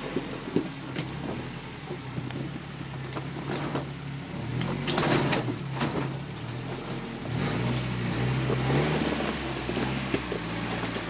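Off-road vehicle's engine running and revving up and down as it crawls over a rock ledge. Several sharp knocks come between about five and seven seconds in.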